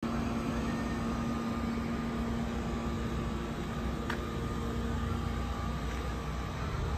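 Diesel engine of a parked fire truck idling with a steady low rumble and hum. One short click about four seconds in.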